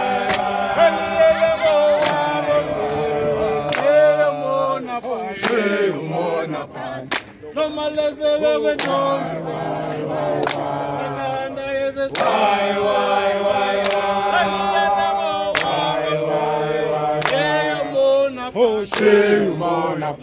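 A group of men and women singing a chant-like song together, unaccompanied, on long held notes, with a sharp clap about every one and a half to two seconds keeping a slow beat.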